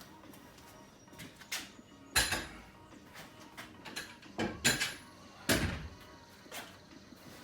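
Steel parts of a folding wall-mount squat rack being handled: five sharp metal knocks with a short ring, the loudest about two seconds in, and a creak from the mechanism.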